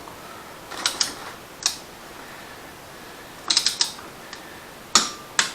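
Ratcheting torque wrench clicking in short bursts as a bolt is tightened into a restored thread in an aluminium cylinder head, testing that the repaired thread holds torque.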